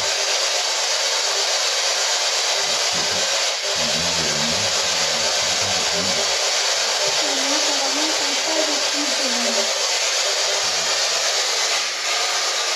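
Spirit box (PSB11) hissing with steady, loud radio static, with faint muffled voice fragments underneath.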